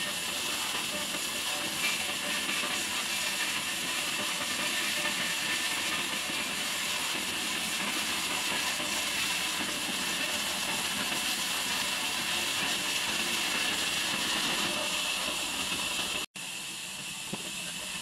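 Horizontal band sawmill sawing lengthwise through a log, a steady high hiss of the band blade cutting the wood. The sound cuts out for an instant about sixteen seconds in, then goes on a little quieter.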